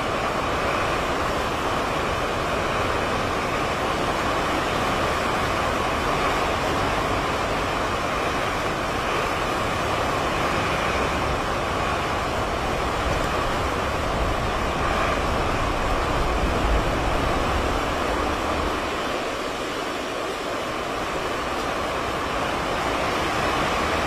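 Hurricane wind and rough, choppy water: a steady rush of noise with gusts buffeting the microphone, heaviest a little past halfway through.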